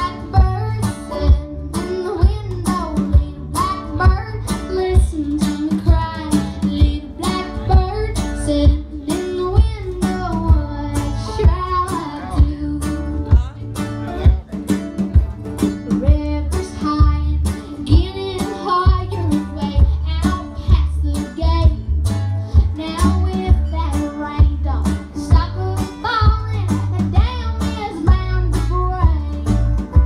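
Live band music: a young girl sings the lead over acoustic guitar, upright bass, electric guitar and a steady snare-drum beat.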